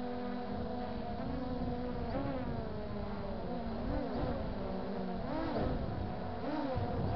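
MJX Bugs 3 quadcopter's brushless motors buzzing, heard close up through the onboard camera. Their pitch swoops up and down several times as the throttle changes, with the motors slightly out of step with one another.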